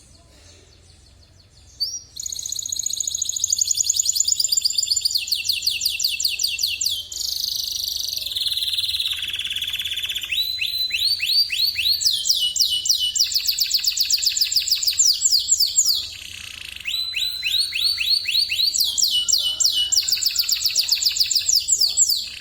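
Canary singing loudly: a long song of fast trills, each a quick run of repeated high notes, switching to a new trill every few seconds, starting about two seconds in with a brief break around sixteen seconds.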